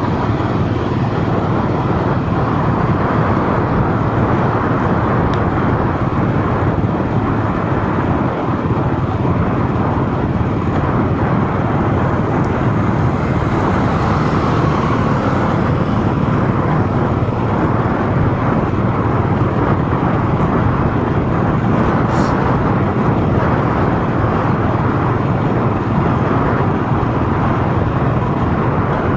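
Steady road and traffic noise of a vehicle being driven through city streets, engine and tyre noise blended together with no break.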